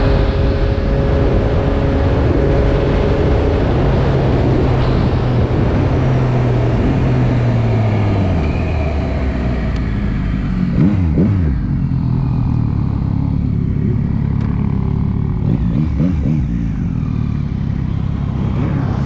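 Motorcycle engine running at steady revs, its note falling as it slows about eight seconds in. After that the engine sound rises and falls in quick surges of revs.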